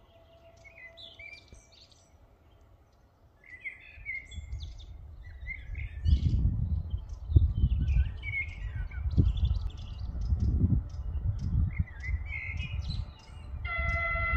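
Songbirds chirping and singing, over a low, uneven rumble that builds from about four seconds in. Near the end a train horn starts sounding one steady, held tone.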